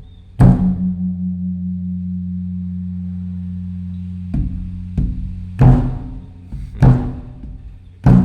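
A Thai temple drum being beaten as the evening drum signal (klong laeng) announcing the eve of a Buddhist holy day. One heavy stroke comes just after the start, and after a pause of about four seconds a run of five more strokes follows. A low ringing hum hangs on between the strokes.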